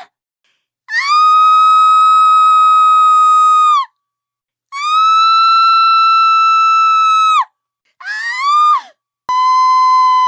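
Screaming sound effects played back to back: two long, high screams each held at one pitch for about three seconds, bending up at the start and dropping off at the end, then a short rising shriek. Near the end a steady, unwavering high tone begins abruptly.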